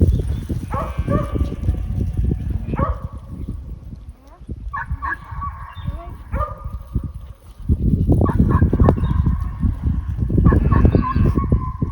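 Repeated short pitched animal calls, about a dozen, over a heavy low rumble that grows louder about two thirds of the way in.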